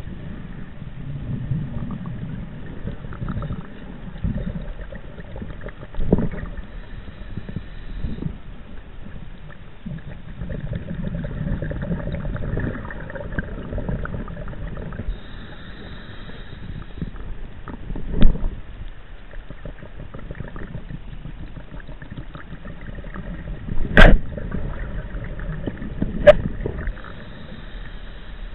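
Underwater bubbling and gushing of a scuba diver's exhaled breath, heard muffled through a chest-mounted camera's housing, coming in long gushes every several seconds. A few sharp knocks break in, two of them much louder than the rest.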